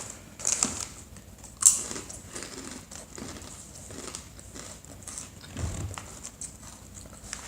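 A plastic snack bag crinkling as crunchy barbecue lentil-flour twists are taken out, with a sharp crackle near the start. After that come irregular small crunches as the twists are chewed.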